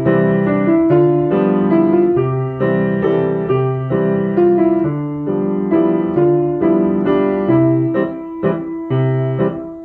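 Piano playing a simple chordal accompaniment in three-four time in C major: low bass notes with chords above, changing in a steady waltz-like rhythm.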